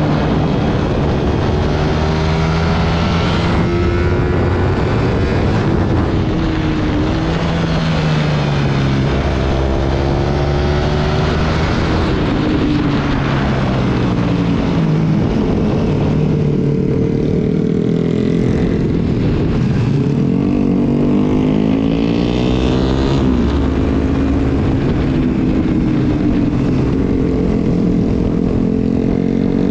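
Sport motorcycle engine heard from on board at track speed, its revs climbing and dropping several times as it accelerates and slows, with a steady rush of wind over the microphone.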